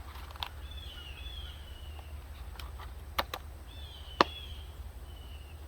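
A few sharp clicks and knocks, the loudest about four seconds in, with faint high chirps and a low steady hum underneath.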